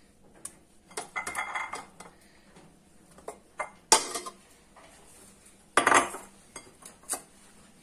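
Cooking pot and utensil clinking and clattering as pieces of raw beef are put into the pot: scattered knocks, a short clatter about a second in, and two sharper strikes about four and six seconds in.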